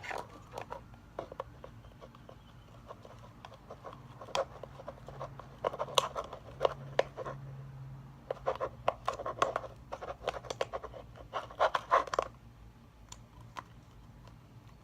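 Slime being stirred in a container: irregular clicks and scrapes of the mixing utensil against the sides, in bunches, dying down near the end.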